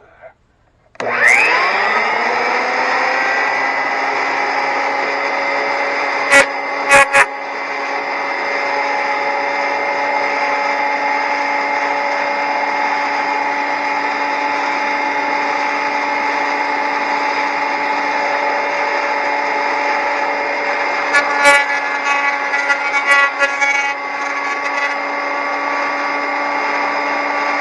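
Delta 22-540 12-inch portable planer switched on about a second in, its motor and cutterhead spinning up with a rising whine and then running on at a steady, loud pitch. Sharp knocks come a little after six and seven seconds in, and a run of clicks and rattles comes later, about three quarters of the way through.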